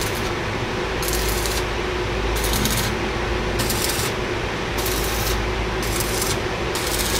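MMA stick-welding arc crackling and sizzling steadily as a 2 mm electrode burns at about 50 amps, with a faint steady hum beneath.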